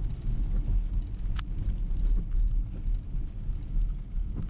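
Road noise heard inside a car's cabin while driving on a wet road: a steady low rumble of engine and tyres, with one sharp click about a second and a half in.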